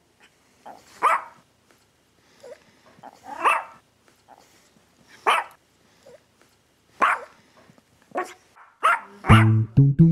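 A dog barking, single short barks every second or two with a few fainter yips between. About nine seconds in, plucked guitar and bass music begins.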